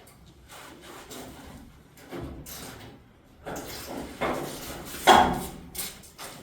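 Irregular scraping and knocking from hand work on the truck's front end, with a louder grating scrape about five seconds in.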